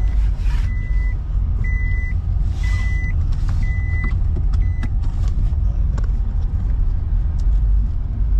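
Car's seatbelt reminder chime beeping at one high pitch about once a second, warning of an unfastened seatbelt, and stopping about five seconds in. Under it runs the car's steady low rumble from inside the cabin.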